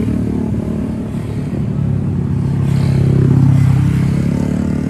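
Road vehicles passing close by, their engines running; one builds to its loudest about three and a half seconds in and then fades.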